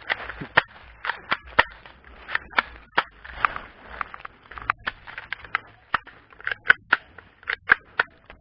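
Airsoft guns firing single shots, sharp snapping cracks a few times a second at irregular intervals.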